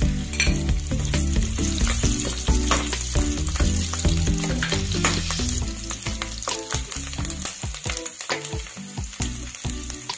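Garlic cloves and ginger sizzling as they fry in hot oil in an aluminium kadhai, with a spatula scraping and tapping the pan as it is stirred. The sizzle eases after about six seconds, leaving separate scrapes and taps.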